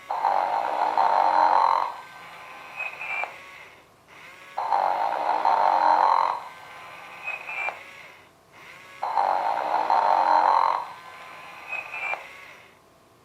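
Sing & Snore Ernie talking toy playing its recorded snoring through its small speaker: three snores about four and a half seconds apart, each a loud rasping snore about two seconds long followed by a quieter breath with a short chirp near its end.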